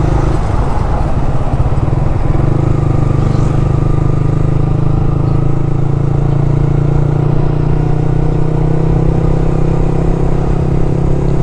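Yamaha R15's single-cylinder four-stroke engine running steadily at cruising speed, heard from the rider's seat.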